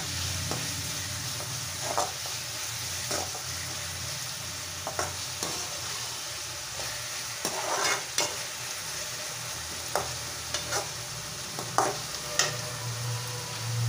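Chopped onions, tomato and curry leaves sautéing in oil in a metal kadai: a steady sizzle, with the stirring spoon scraping and knocking against the pan about once a second.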